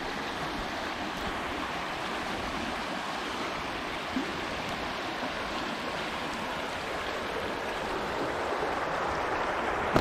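Shallow river running fast over a rocky riffle: a steady, even rush of water, a little louder near the end.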